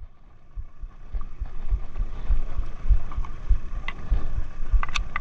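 Low, irregular thumping and a faint steady hum aboard a small fishing boat at sea, with two sharp clicks near the end.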